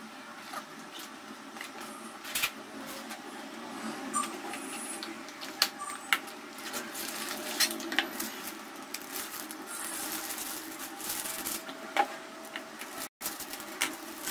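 Handling noises of a cardboard noodle box and a plastic-wrapped bundle of dry noodles being taken out of it, with scattered clicks and taps over a steady background hum.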